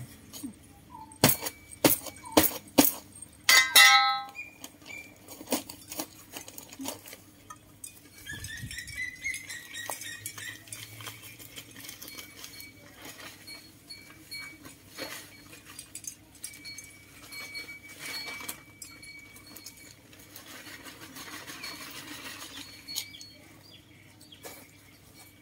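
A long-handled metal shovel digging into soil and knocking against the ground: a run of sharp knocks and clinks in the first few seconds, one ringing briefly, then scattered quieter clicks and scuffs.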